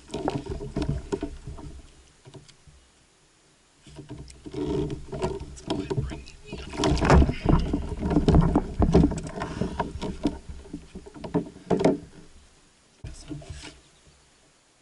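Handling noise in a kayak as a large flathead catfish is lifted aboard and held: irregular knocks, thumps and scrapes against the hull and gear. There is a short burst at the start, a pause, then a long busy stretch, and one more brief burst near the end.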